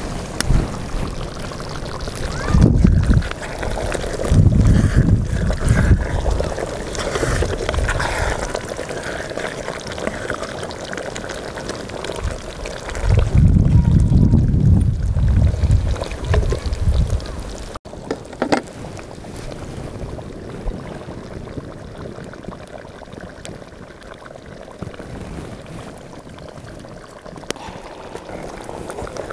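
Wind buffeting the microphone in low, rumbling gusts over a steady outdoor hiss; the gusts stop abruptly about two-thirds of the way through, leaving a quieter, even background.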